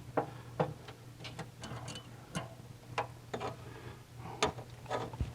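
Scattered light clicks and taps of small metal parts and tools, irregular and a dozen or so over a few seconds: hand work fitting an electronic ignition unit into the distributor.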